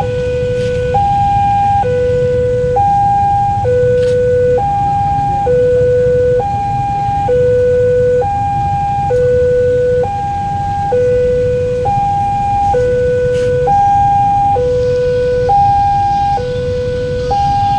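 Railway level-crossing warning siren, the crossing's new siren, sounding a steady two-tone hi-lo alternation. Each tone lasts just under a second, with a low rumble underneath.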